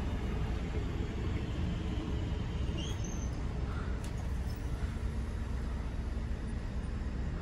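DB Regio Class 440 electric multiple unit at the platform, a steady low rumble and hum with no sharp sounds.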